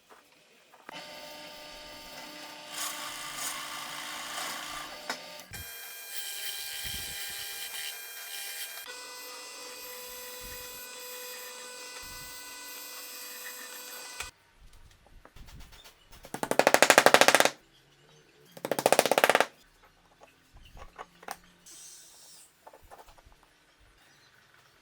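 A power tool with a steady whine that shifts in pitch twice over several seconds, then two short, loud bursts of very rapid rattling about a second apart.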